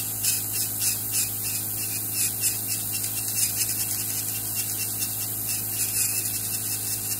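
Podiatrist's electric nail drill grinding down a thick fungal toenail with a rotary burr. A steady motor hum runs under a hiss of water-and-alcohol spray, and the grinding comes in quick, irregular scratchy strokes.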